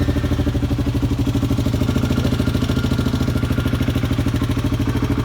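2012 Honda Rancher 420 ATV's single-cylinder four-stroke engine idling steadily with an even, rapid pulse. It was just started on a replacement battery: a dead battery, not the starter or solenoid, had caused the clicking no-start.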